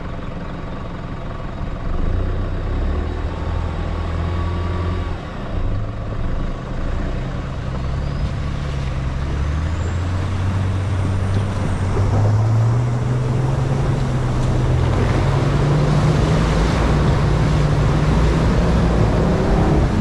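Four-wheel-drive vehicle's engine running under load, its note climbing in pitch about halfway through as the revs rise and then holding high.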